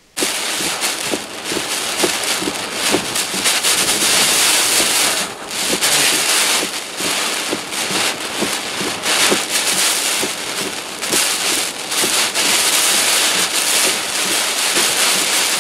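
Wind-driven hurricane rain pelting a car's windshield and body, heard from inside the car: a loud, dense crackling patter of drops over a steady rush of wind, starting abruptly.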